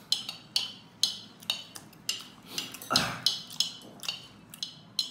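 Metal spoon scraping and clinking against a ceramic bowl, scooping up the last bits of food in short, irregular strokes, about two a second.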